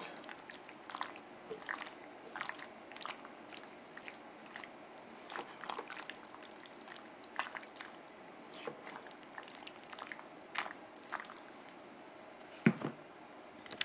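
Silicone spatula stirring thick, sauce-coated rigatoni in a cast-iron skillet: soft wet squelches and light scrapes, with a sharper knock near the end.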